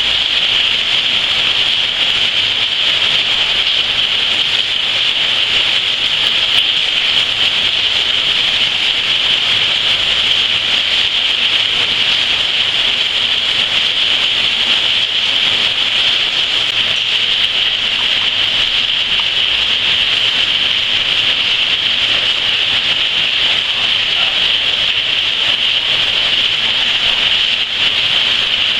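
Steady rain falling, a continuous loud hiss of drops with no letup.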